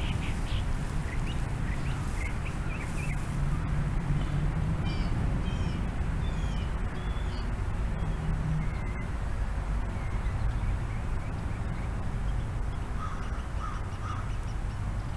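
Outdoor birds chirping and calling in short scattered notes, over a steady low rumble.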